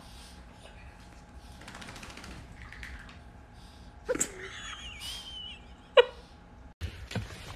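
A wet small terrier puppy shaking itself off on a towel, its fur flapping, with two short sharp sounds, one about four seconds in and a louder one about six seconds in.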